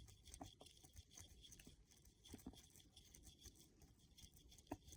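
Faint, irregular scratching and ticking of a crochet hook being worked into a dreadlock to pull stray hairs into its centre, with one sharper tick near the end.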